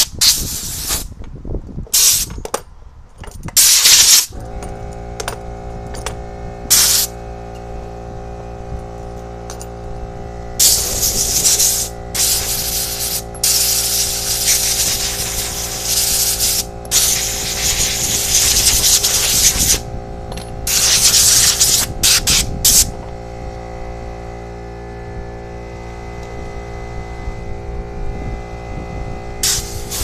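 Compressed air hissing in repeated bursts from an air hose. About four seconds in, a small new 150 psi, 4.1 CFM air compressor starts and runs with a steady hum under the hissing.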